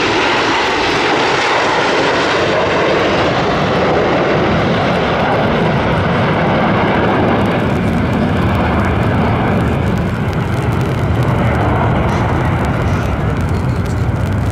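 Jet aircraft passing, a steady loud noise from the Aermacchi MB-339 jets' turbojet engines; about halfway through the higher part of the sound fades and a deeper sound takes over as they move away.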